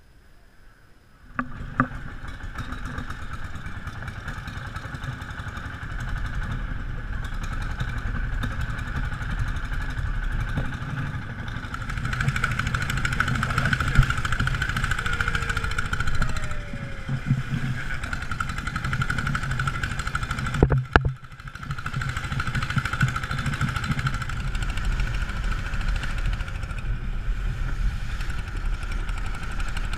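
Engine of a narrow long-tail boat running steadily at speed, with water rushing past the hull. It comes in sharply about a second and a half in and breaks off briefly a little past two-thirds of the way through.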